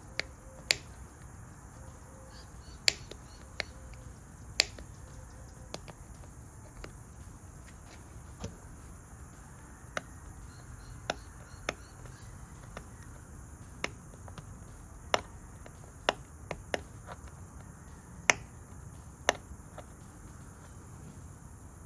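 Sharp little metallic clicks, well over a dozen at irregular spacing, as the tumbler wafers of a 1988 GMC pickup's door lock cylinder are handled and pushed into place during rekeying.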